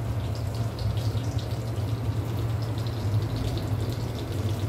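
A steady low hum with a noisy hiss over it, unchanging throughout.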